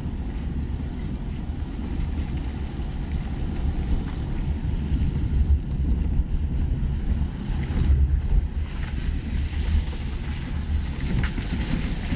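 Car driving, heard from inside the cabin: a steady low rumble of engine and tyres on a wet road.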